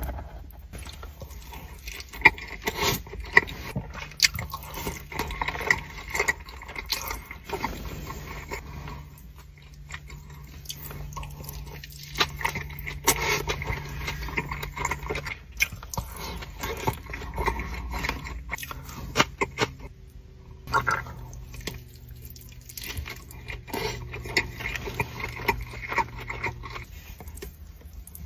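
Close-miked eating sounds from a person eating seared salmon nigiri: chewing and mouth noises with many small clicks and taps.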